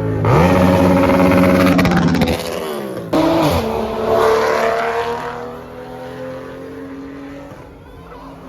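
Car engine revving hard under acceleration. The pitch climbs and holds, drops off about two seconds in, then surges again about three seconds in and fades as the car pulls away.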